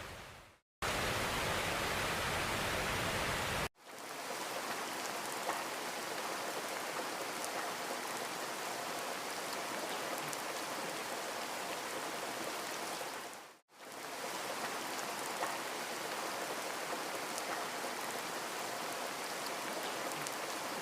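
Steady rush of falling water from a waterfall, broken into several clips: the sound drops out briefly near the start, at about four seconds and at about fourteen seconds, and the short second clip is louder with more low rumble.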